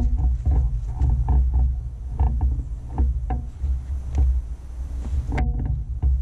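Footsteps walking over dry fallen leaves and grass, with short crunches and knocks several times a second from the steps and the swinging disc golf bag, over a steady low rumble of movement against the body-worn microphone.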